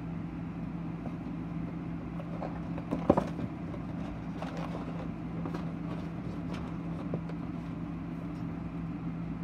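A cardboard box and its printed paper insert being handled: scattered rustles and small knocks, the sharpest about three seconds in, over a steady low hum.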